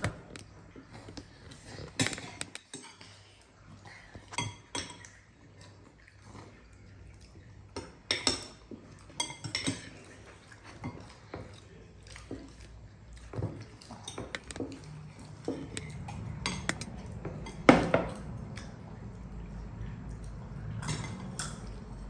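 Metal spoons scraping and clinking against bowls as children scoop up rice. The clinks are irregular, with one louder knock about three-quarters of the way through.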